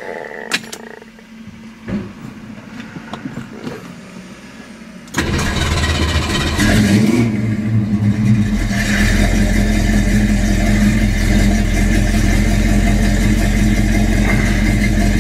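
A 1967 Mercury Cougar XR-7's rebuilt 289 V8 with a four-barrel carburettor being started: a few clicks and a few seconds of quieter cranking, then the engine catches suddenly about five seconds in, revs briefly and settles into a steady idle through its redone exhaust.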